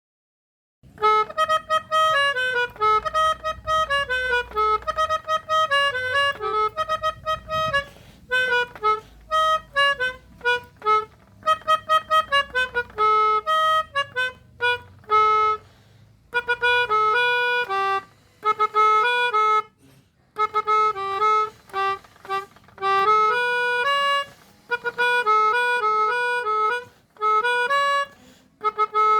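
Pianika (melodica) playing a basuri telolet bus-horn tune: a quick melody of short, stepping notes with brief pauses, starting about a second in.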